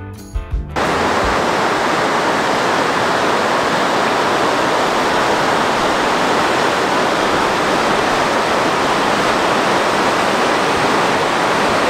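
Steady, unbroken rush of a large waterfall, the Upper Falls of the Yellowstone River, cutting in abruptly under a second in after a brief snatch of music.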